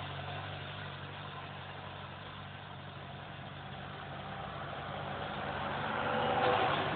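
Suzuki Bandit motorcycle's inline-four engine idling steadily, getting a little louder near the end.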